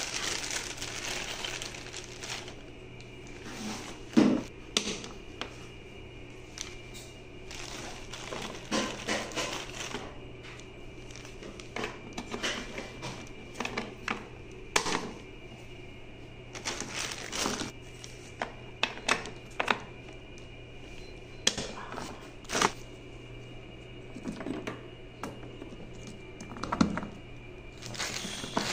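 Irregular clicks, knocks and rustles as the plastic housing of a TOTO toilet unit is handled, with crinkling of clear plastic sheeting.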